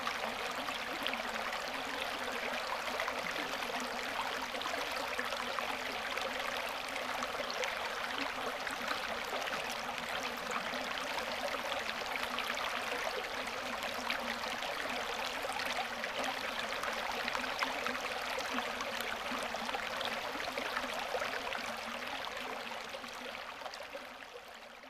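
Shallow stream rippling over flat rock ledges: a steady, even rush of running water that fades out near the end.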